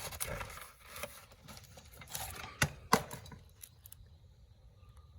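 Light handling noises: rustling and small clattering, with two sharp clicks close together about two and a half to three seconds in.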